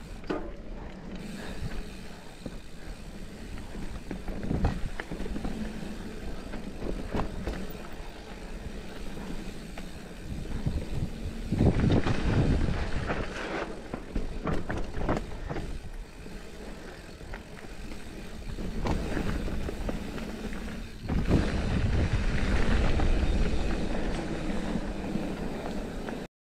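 Giant Trance mountain bike riding down a dirt trail: tyres rolling over dirt and leaf litter, with frequent sharp knocks and rattles from the bike over bumps, and wind rushing across the camera microphone. The noise grows louder in two stretches, about twelve seconds in and again for the last few seconds, and cuts off abruptly at the end.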